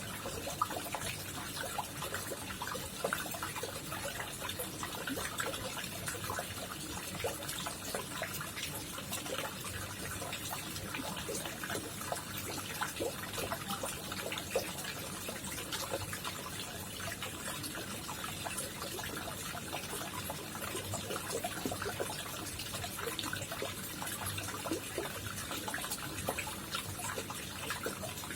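Water trickling and splashing steadily in a koi pond, a constant run of small splashes and drips.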